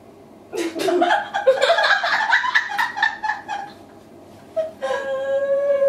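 Two women laughing: a burst of high-pitched, choppy laughter starts about half a second in, and after a short pause one voice holds a long, steady high note near the end.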